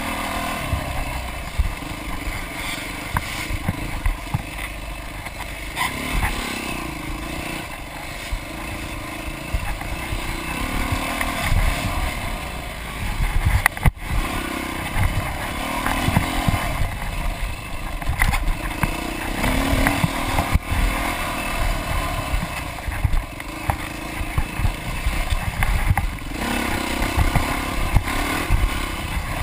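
Off-road dirt bike engine, heard from on board, revving up and down as the rider races over a dirt track, with frequent low thuds and rumble from the rough ground.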